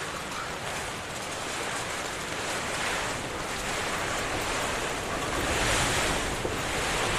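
Strong wind blowing in gusts with heavy rain, a rushing noise that swells in surges and is loudest near the end.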